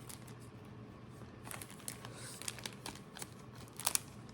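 Light rustling and crinkling with scattered small clicks as pre-cut fabric pieces and their small packet are handled, a piece being slipped back into the packet; the handling gets busier from about a second and a half in, with the sharpest crinkles near the end.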